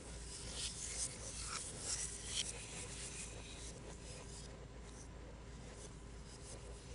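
Stylus drawing on a tablet screen: a run of short scratchy strokes in the first half, then lighter, steadier rubbing.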